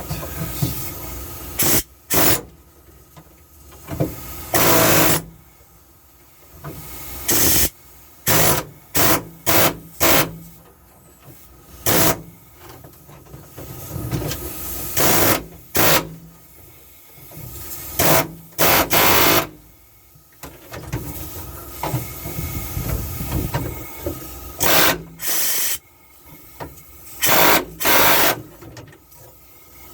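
Grinder grinding out a spot weld in the steel floor-pan metal, in about twenty short bursts of metal-on-abrasive contact, with the tool spinning more quietly between them.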